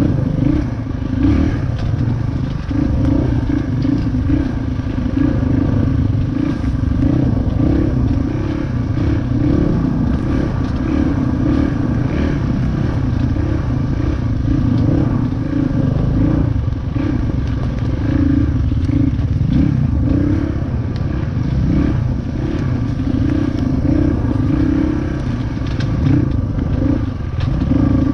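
Dirt bike engine running continuously on a trail ride, its pitch rising and falling with the throttle. Frequent clatter and knocks come through alongside it.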